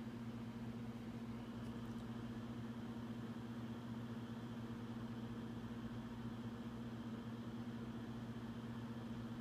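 Steady low hum of background room noise, with a faint high-pitched whine coming in about one and a half seconds in.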